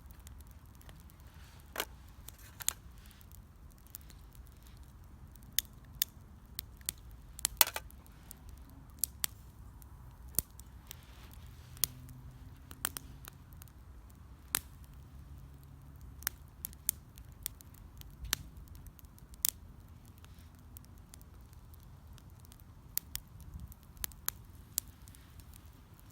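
Wood fire crackling, with irregular sharp pops and snaps from the burning wood, the loudest about a third of the way in, over a faint low steady hiss.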